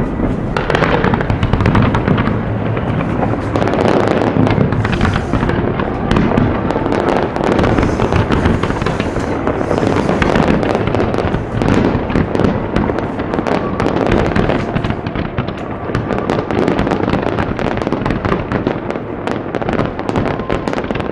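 Fireworks display at full volley: many shells bursting together, a continuous barrage of overlapping bangs and crackles with no break.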